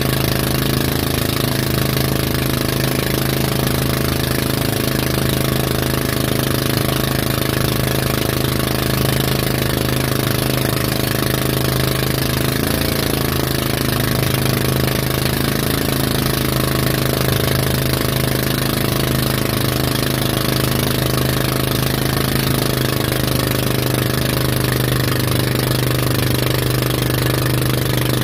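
Tow boat's engine running at a steady speed, one unchanging low hum, over a constant rush of wind and water spray.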